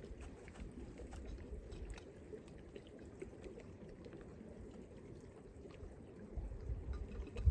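Steady running water of a stream, with wind rumbling on the microphone near the start and again near the end.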